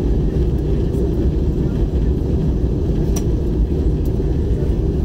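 Steady low roar of cabin noise in an Airbus A320-233 in flight, heard from a window seat over the wing: its IAE V2500 turbofans and the rush of air along the fuselage. There is a brief click about three seconds in.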